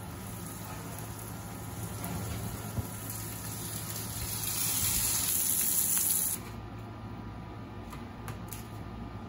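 Broiled lobster tails and garlic-herb butter sizzling on a hot sheet pan as it comes out of the oven, growing louder, then cutting off abruptly about six seconds in. A few light clicks of tongs on the pan follow.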